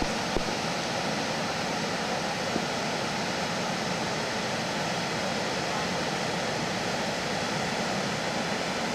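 Floodwater rushing through a desert wash: a steady, even rush of moving water with no breaks.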